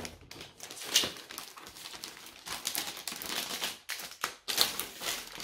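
Clear plastic packaging sleeve crinkling and rustling as it is handled, with a few sharper crackles about a second in and again near the end.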